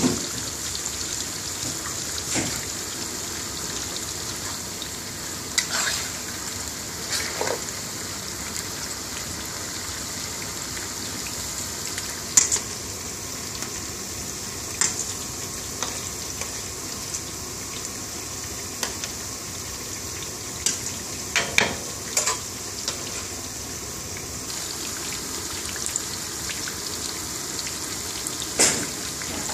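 Onion bhajis deep-frying in a wok of hot oil: a steady, high sizzle with occasional sharp clicks.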